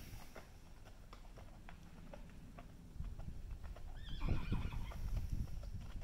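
Hooves clopping on packed dirt in a steady run of soft hoofbeats, with a horse whinnying briefly about four seconds in.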